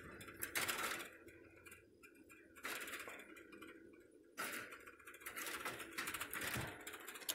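Light rapid clicking and rattling of a chain-link fence, in four short bursts, as a dog paws and mouths at the mesh and at a hand pushed through it.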